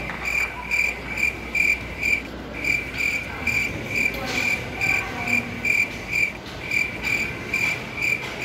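Cricket chirping, short even chirps on one high note about two and a half times a second, pausing briefly twice.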